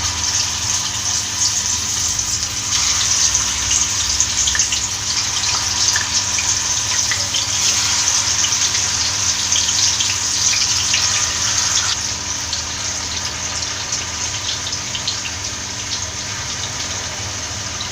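Pieces of yogurt-and-spice marinated boneless chicken sizzling in hot oil in a frying pan, a steady hiss starting as they go in, with many small crackles and pops. The sizzle eases a little after about twelve seconds.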